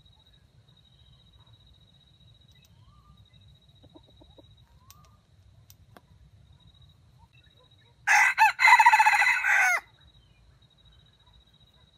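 Red junglefowl rooster crowing once, a crow of under two seconds that breaks off twice at its start before running on: a stuttering crow.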